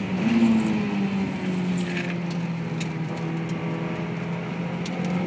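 Honda S2000's four-cylinder engine heard from inside the cabin at high revs, its pitch dipping briefly at the start and then falling slowly and steadily as engine speed drops, over road and wind noise.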